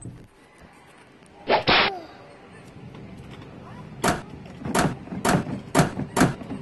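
Sharp thumps and knocks on a plastic ride-on toy car, a Little Tikes Cozy Coupe, as a small child drives and handles it: one loud burst about one and a half seconds in, then a quick run of knocks about every half second in the second half.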